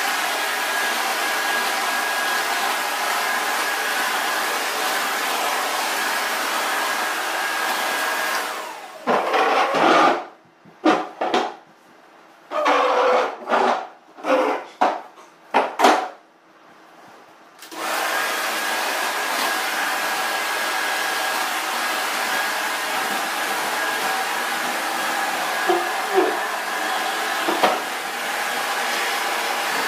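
Upright vacuum cleaner running steadily on a tile floor, with a faint high whine over its rushing noise. It shuts off about eight seconds in. For the next several seconds there are a handful of loud, short sounds, then the vacuum starts again and runs on.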